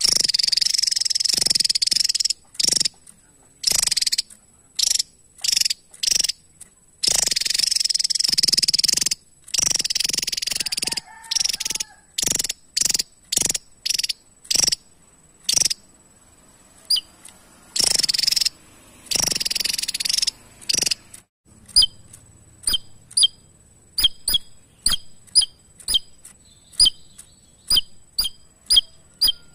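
Javan tesia calling: long, loud, buzzy high-pitched trills of about two seconds alternate with quick series of short sharp notes, then, from about two-thirds of the way in, a regular run of short sharp chips about twice a second.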